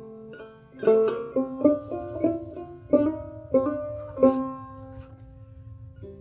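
Instrumental Bengali folk background music: a plucked string instrument picking out a melody, each note struck sharply and dying away.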